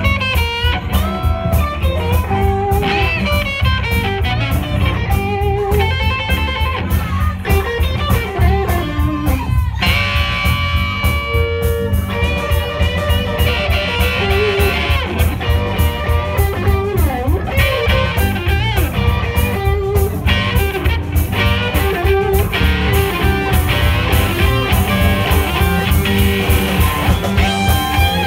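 Live blues-rock band playing an instrumental passage: two electric guitars, one a Telecaster-style, over a drum kit. The lead guitar plays sustained notes with bends and vibrato.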